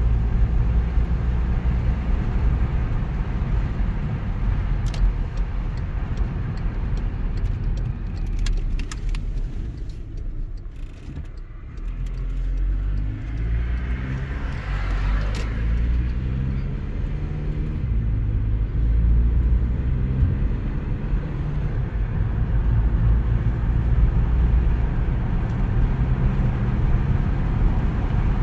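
Volkswagen Passat B7 on the move: a steady hum of engine and tyre noise. It eases off about ten seconds in, then the engine note climbs as the car picks up speed again, with a few short clicks or rattles along the way.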